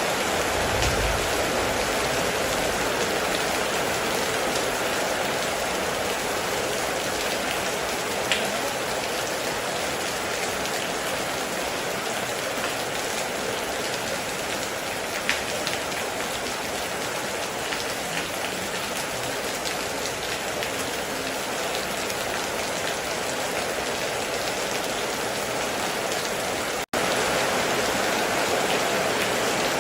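Heavy rain falling steadily, with a few sharp drop ticks standing out. The sound cuts out for an instant near the end, then resumes.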